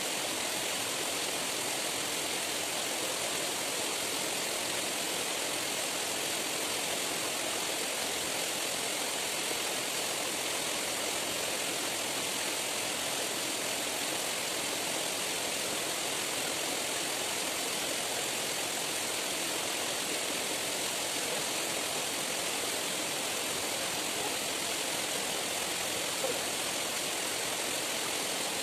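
Steady rushing of running stream water, an even noise with no breaks.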